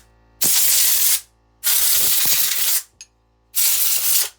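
Three blasts of compressed air, each about a second long, blowing out a plate and bearing from an automatic transmission valve body to clean it.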